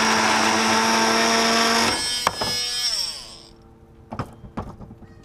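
Oscillating multi-tool cutting the plastic trim ring of a roof fan, a loud steady buzz. About two seconds in it is switched off and winds down with a falling whine, followed by two light knocks.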